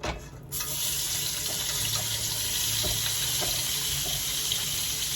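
Chopped bell peppers going into a hot skillet of melted butter and olive oil: a light knock, then a steady sizzle that starts abruptly about half a second in.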